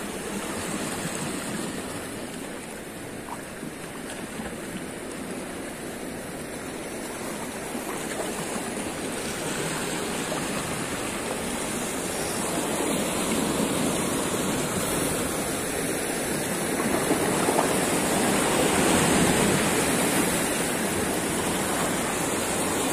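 Small sea waves washing and splashing against shoreline rocks: a steady rush of water that grows somewhat louder through the second half.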